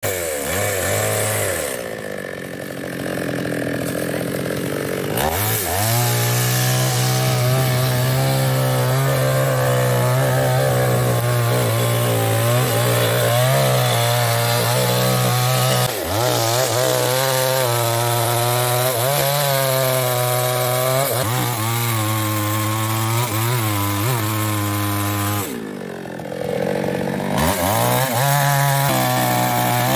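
Small New West two-stroke chainsaw at full throttle, cutting through the trunk of an old mahogany tree. The pitch wavers as the chain bites and bogs in the wood, and the saw eases off briefly twice, a couple of seconds in and near the end.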